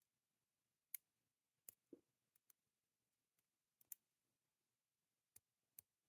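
Small metal clicks of a lock pick working the pin tumblers of a brass Master Lock 150 padlock under a tension wrench: about ten sharp clicks at irregular intervals, some in quick pairs.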